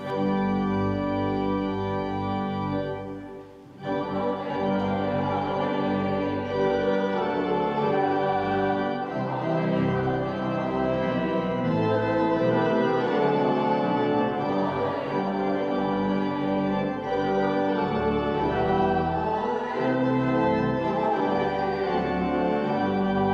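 Church organ playing sustained chords: a short opening phrase, a brief break about three and a half seconds in, then the music carries on without a pause.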